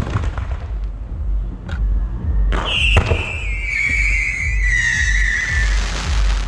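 Fireworks going off: sharp cracks of bursting shells, then about two and a half seconds in a whistling firework lets out a long whistle that slides slowly downward for about three seconds.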